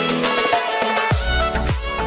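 Background music: a bright, melodic instrumental track, joined about a second in by deep, booming bass-drum hits roughly every half second.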